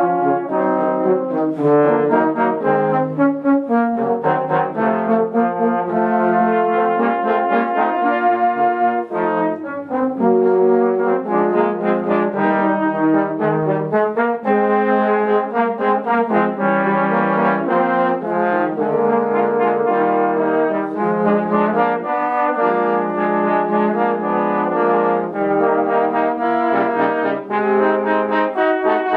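A trombone quartet playing in four-part harmony, the four trombones holding chords and moving between notes together, briefly softer about nine seconds in.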